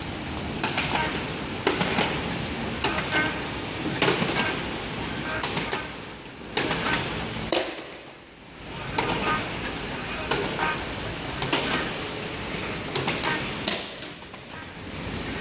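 Automatic round-bottle labeling machine running: a steady mechanical noise with a sharp click or knock roughly once a second as bottles pass through.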